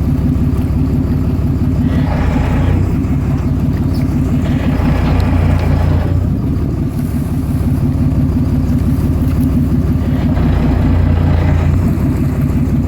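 A boat engine running steadily with a deep, even drone, and a passing hiss now and then.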